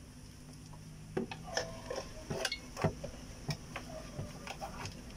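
Irregular light clicks and taps of a plastic inverter-board housing and its wire connectors being handled and fitted, starting about a second in.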